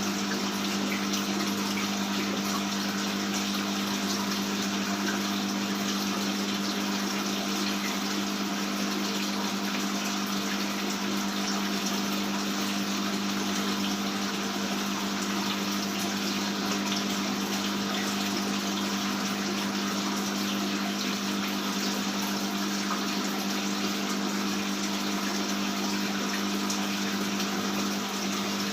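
Aquarium water pump running steadily with water splashing and trickling, over a constant low hum.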